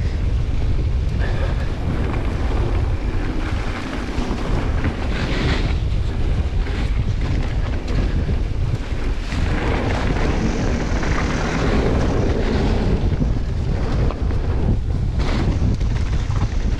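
Wind buffeting the microphone as a Commencal Meta AM enduro mountain bike descends a trail, with steady tyre noise on dirt and short knocks and rattles over bumps.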